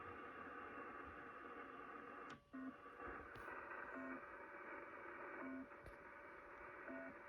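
Shortwave band noise, a steady hiss, from a Kenwood TS-850SAT receiver tuned to 4635 kHz, with a short low beep about every second and a half starting a few seconds in. The hiss drops out briefly just before the first beep. The uploader wonders whether this odd signal is a pirate imitation of the UVB-76 buzzer or a broken buzzer.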